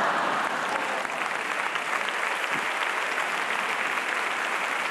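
Theatre audience applauding, a steady round of clapping that is a little louder at first and then holds even.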